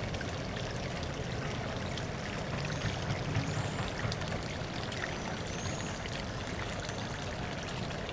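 Steady running, trickling water, with a few faint high chirps in the middle.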